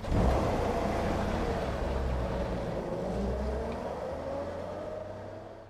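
A 1949 GMC 100 pickup's 228 cubic-inch inline-six running while the truck is driven, heard from inside the cab as a steady low drone with a tone that dips and then rises again in pitch. The sound fades out near the end.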